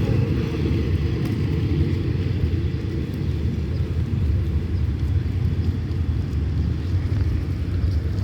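Hitachi diesel-electric locomotive running with a steady low rumble.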